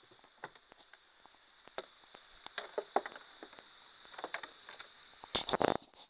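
Scattered small clicks and knocks, with a short burst of louder knocks about five and a half seconds in, over a faint steady high-pitched tone.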